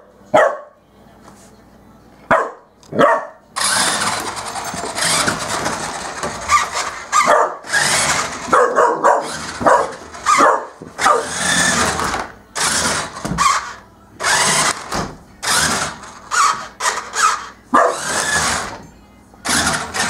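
A puppy barks a few times at the start. Then a toy remote-control car's electric motor whirs in repeated bursts as it is driven back and forth over the floor, stopping and starting every second or two.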